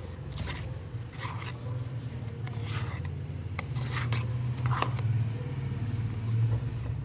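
Freshly activated slime being stirred and squeezed, giving several short wet squelches over a steady low rumble that grows louder toward the end.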